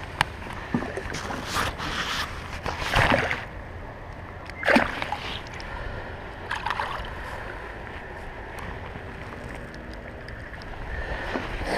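A small northern pike being released from a dock: a few short splashes and handling knocks, the loudest and sharpest about four and a half seconds in, over a steady low rumble of wind on the microphone.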